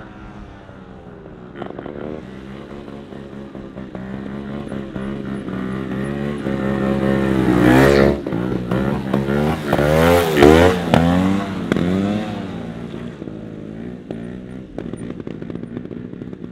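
Trials motorcycle engines revving up and down as the bikes are held in wheelies, growing loud as one passes close about eight and ten seconds in, then fading.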